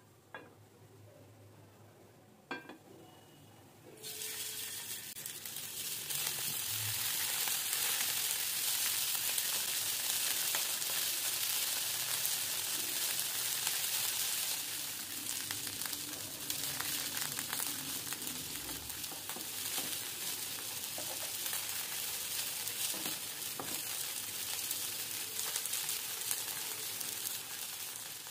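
Spice-marinated chicken pieces frying in hot oil in a nonstick pan, with a steady sizzle that starts suddenly about four seconds in. A single light knock comes just before it.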